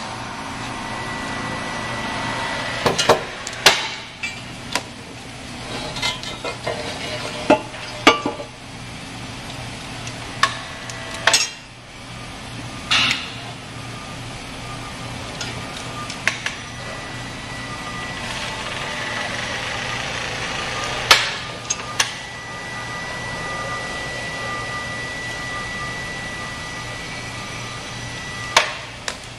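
Sharp, irregular metal clanks and knocks as a heavy ductile iron pump case, hanging from a hoist hook, is handled and fitted onto the stuffing box, over a steady background hum.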